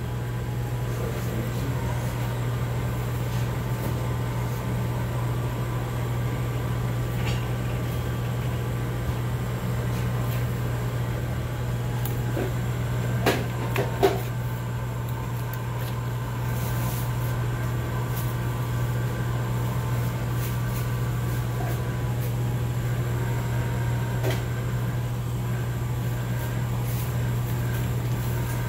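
Steady low machine hum of kitchen equipment, with two sharp knocks about halfway through.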